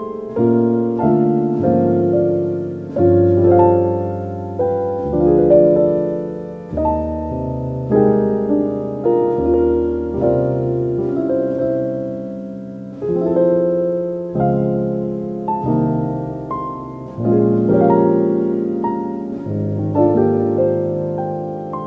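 Slow, soft solo piano music: sustained chords and single notes struck every second or so, each fading away before the next.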